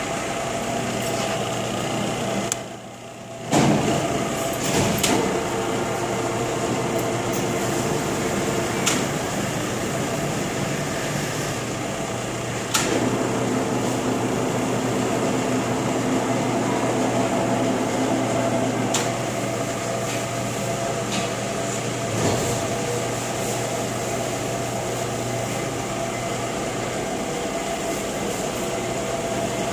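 LeBlond Regal engine lathe with a 20 hp drive, running: a steady machine hum with gear whine whose tones change a few times. The sound drops out briefly about three seconds in, and there are occasional sharp clicks and knocks.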